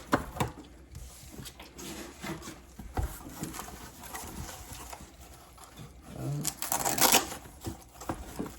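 Packaging being handled and opened to get at a set of adjustable wrenches: scattered clicks and rustles, a sharper knock about three seconds in, and a louder burst of rustling near the end.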